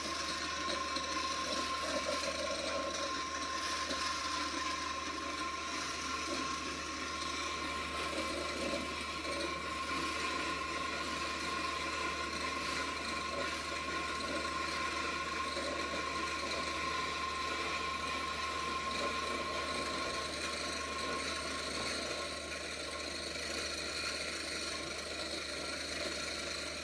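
Commercial wet and dry electric grinder running steadily, its motor giving a constant whine over a dense mechanical grinding noise.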